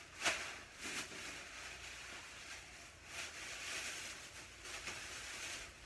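Plastic grocery packaging rustling as items are unpacked and set down, with a sharp tap just after the start and a fainter one about a second in.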